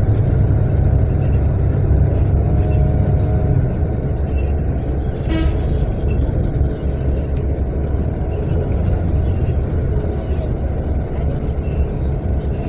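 Steady low rumble of a natural-gas city bus running along a street, heard from inside the cabin; the engine note is heavier for the first few seconds, then eases. A short horn beep sounds about five seconds in.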